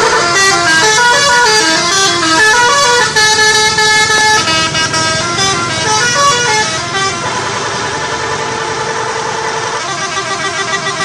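Bus 'telolet' horns, multi-note musical horns fitted to Indonesian tour buses, playing quick runs of short stepping notes, then holding a steady chord for a few seconds.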